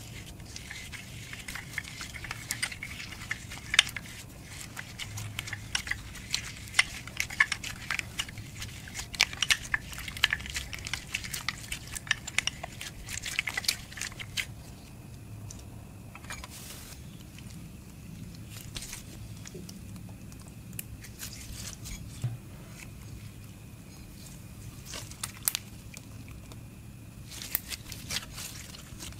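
Fingers squishing and kneading clear slime mixed with lipstick chunks and glitter, making dense wet crackling clicks for about the first half. After that the clicks thin out to scattered pops as the slime is worked and stretched.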